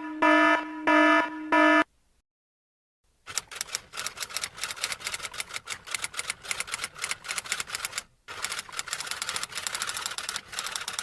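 Four short electronic beeps in quick succession, then after a pause a long run of rapid keystroke clicks like a typewriter, broken briefly once near the end.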